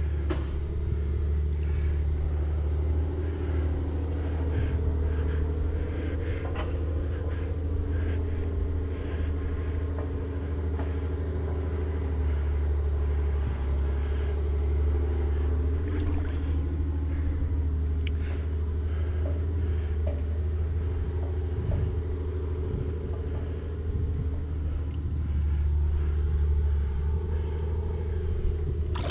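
Steady, muffled low rumble of water moving against a GoPro camera at the lake surface, heard through the camera's waterproof case, with a few faint knocks.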